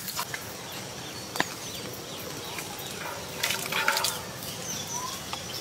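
Live spiny lobsters being handled into a large metal pot of water: scattered clicks and light knocks, busiest a little past the middle, with a few faint short chirps in the background.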